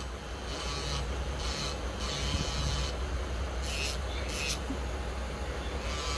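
Electric nail drill running with a steady low hum, its bit grinding against a plastic false nail tip in repeated short rasping passes. The longest pass comes about two seconds in.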